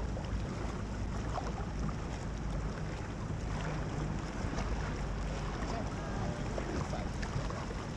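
A small boat under way: its motor runs steadily beneath wind noise on the microphone.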